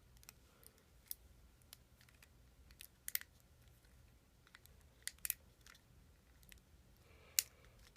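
Small screwdriver prying at a plastic toy watch: faint, scattered clicks and scrapes of metal on plastic at irregular intervals.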